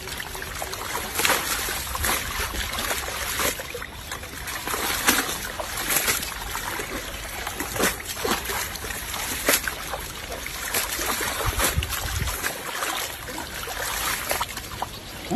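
Water splashing and trickling, with irregular splashes every second or so over a steady watery wash.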